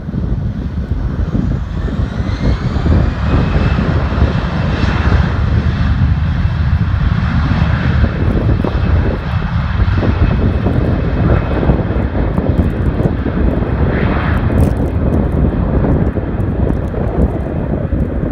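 Jet airliner's engines running loud and close, a heavy steady rumble with a turbine whine that rises in pitch over the first few seconds.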